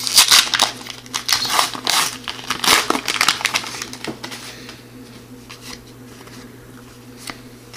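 Trading card pack being torn open and its wrapper crinkled: a quick run of crackly rustles over the first three seconds. After that comes much quieter handling of the cards, with a few small clicks.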